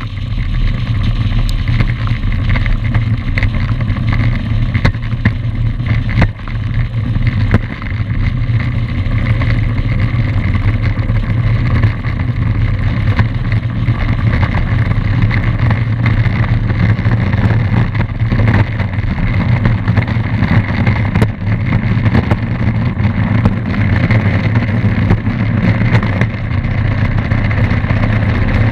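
A high-wing light aircraft's piston engine and propeller running steadily as the plane taxis: an even, low drone that holds its pitch throughout.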